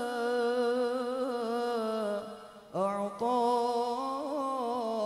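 A man singing an Arabic sholawat solo and unaccompanied, drawing one word out in long held notes with wavering ornaments. He breaks off for a breath a little over two seconds in, then comes back on a new held note.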